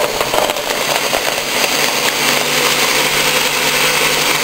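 Ninja Kitchen System 1200 blender running on its Blend setting, its stacked blade assembly chopping frozen fruit in a little water: a loud motor whir with rattling knocks at first. About two seconds in it settles into a steadier whir with a low hum, as the chopped fruit packs against the jar walls and leaves the blades spinning in a hollow.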